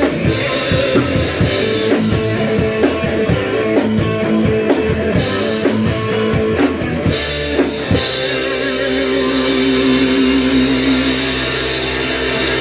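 Live rock band playing drum kit and electric guitars. A steady drum beat drives the first eight seconds, then the band holds a long chord under fast cymbal hits.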